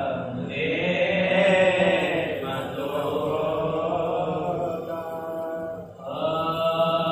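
A man's solo voice chanting a recitation in long-held, melodic notes with slow rises and falls in pitch, with a short break for breath about six seconds in.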